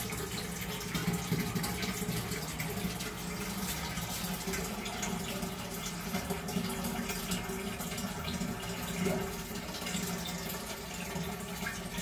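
Toilet cistern refilling: a steady hiss of water running in through the fill valve, with a faint low hum under it.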